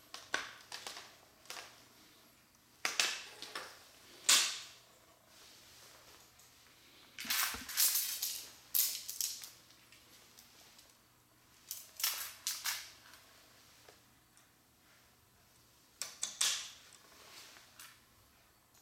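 Plastic construction-kit pieces clicking and clattering: short clusters of sharp snaps every few seconds, with quiet between.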